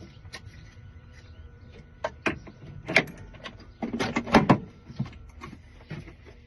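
Scattered sharp clicks and knocks of metal handling at a key-cutting machine, with a tight cluster about four seconds in. A faint steady tone stops about five seconds in.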